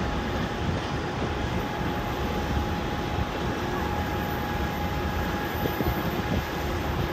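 A freight train's open wagons rolling past with a steady rumble of wheels on rail. A faint, steady whine sits above the rumble.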